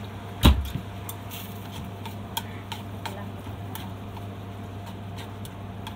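Long cooking chopsticks knocking and tapping against a pot while stirring. One heavier knock comes about half a second in, then scattered light taps, over a steady low hum.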